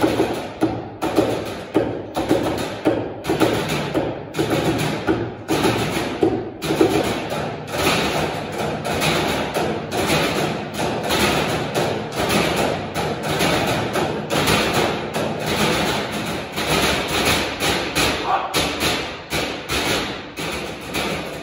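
Percussion quartet playing trash cans with drumsticks: a rhythm of sharp strikes on the metal cans, with the beats spaced out early on and much denser from about a third of the way in.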